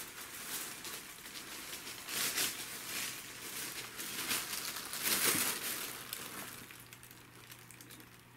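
Plastic bags and sheeting crinkling in irregular bursts as a cat climbs down into and pushes through a heap of them. The crinkling is loudest about five seconds in and dies away near the end.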